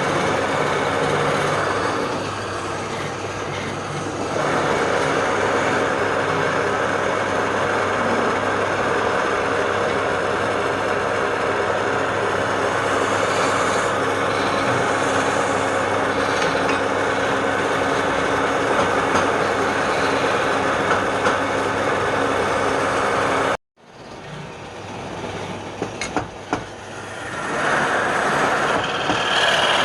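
A woodworking power machine running steadily with a low hum. It cuts off abruptly about three-quarters of the way through, then comes back quieter and builds up again near the end.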